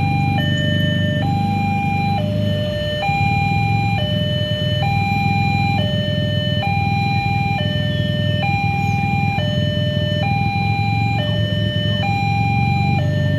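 Railroad level-crossing warning alarm, the crossing's standard factory electronic alarm, sounding a two-tone hi-lo signal that alternates between a higher and a lower tone, each held about a second. A steady low engine rumble runs underneath.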